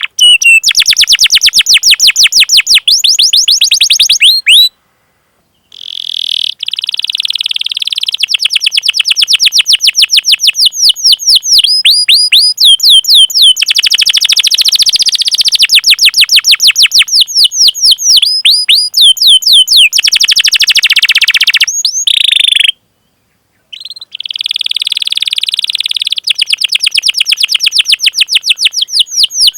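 Domestic canary singing long rolling 'cuit cuit' call phrases: loud, fast series of sharp down-slurred chirps, broken by two short pauses about five seconds in and near the end.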